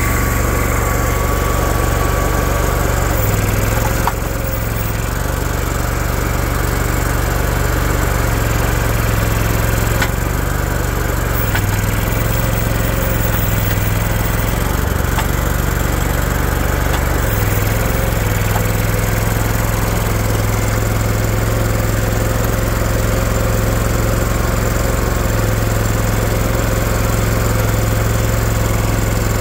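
The Kohler 27 hp Command Pro air-cooled V-twin engine of a Boxer 427 mini skid steer running steadily. Its note shifts several times as the machine's controls are worked.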